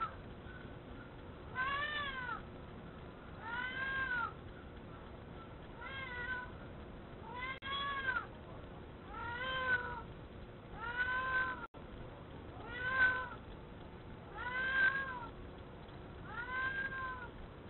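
A cat meowing over and over, one rising-and-falling call about every two seconds, heard through a security camera's microphone.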